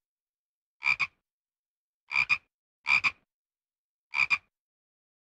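Red-eyed tree frog calling: short two-part clicking calls, four of them about a second apart.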